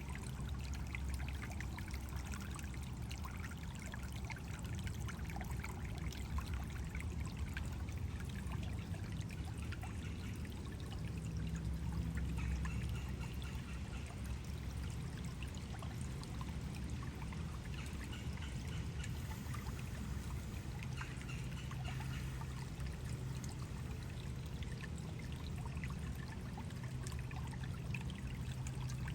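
Stream water flowing and trickling over a small waterfall, a steady splashing babble.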